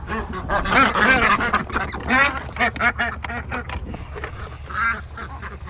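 A flock of ducks quacking over one another in a busy run of overlapping calls, densest in the first couple of seconds, with a single call again near the end.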